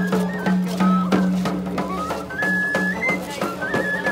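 Traditional Tlacololeros dance music: a flute plays a stepping, repeating melody over a steady drum beat.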